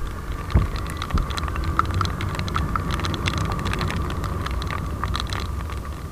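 Rain: many irregular drops tapping sharply close to the microphone, over a steady low rumble.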